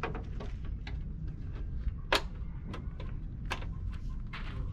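Plastic grille trim pieces of a truck's front panel clicking and knocking as they are fitted by hand: a scatter of short, sharp clicks, the loudest about two seconds in, over a steady low rumble.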